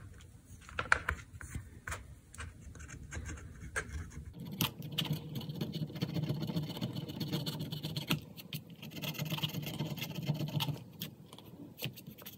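Wooden stick scraping and scratching along the edge of a mirror in its frame, clearing excess hot glue, with scattered small clicks and taps. A steadier rubbing sets in about four seconds in and eases off near the end.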